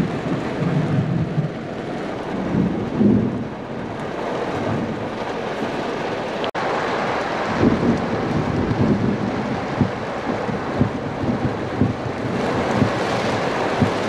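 Heavy thunderstorm rain pelting the roof and windows of a car, heard from inside the car as a dense, steady patter with many sharper hits. Low rumbles of thunder come in the first few seconds.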